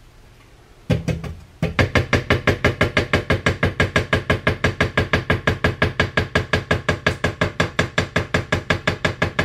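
Electric mixer switched on about a second in, running at low speed through cookie dough with a fast, even thumping of about six beats a second over its motor hum.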